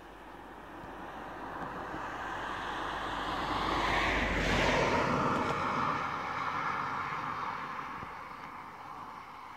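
A car passing on a road: tyre and engine noise swells to a peak about halfway through, drops in pitch as it goes by, then fades away.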